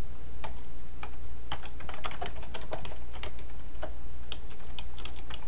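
Typing on a computer keyboard: irregular key clicks, a few per second, over a steady low hum.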